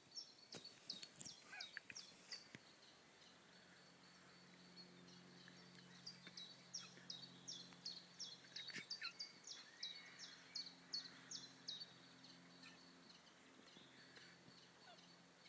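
Faint outdoor sound of a small bird giving quick runs of short, downward-sliding chirps, about two to three a second, over a low steady hum.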